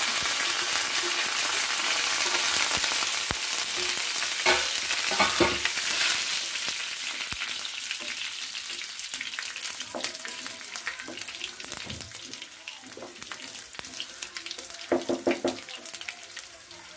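Garlic cloves, chana dal, dried red chillies and cumin sizzling in hot oil in a non-stick frying pan as a tempering, stirred with a wooden spatula. The sizzle is loudest just as they go in and dies down gradually as they fry.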